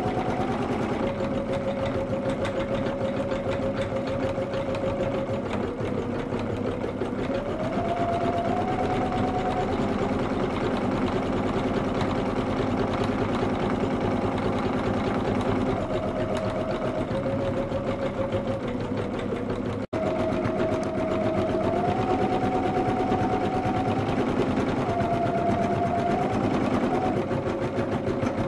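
Pfaff Creative computerized embroidery machine stitching steadily at speed, a fast needle clatter over a motor whine that steps up and down in pitch as it changes speed. The sound drops out for an instant about two-thirds through.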